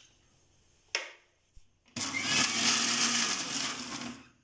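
Kitchen mixer grinder pulsed once for about two seconds, whirring a jar of thick milk cream (malai); it starts abruptly and winds down near the end. This first pulse whips the cream smooth before chilled water is added to churn out butter. A single click comes about a second in, before the motor starts.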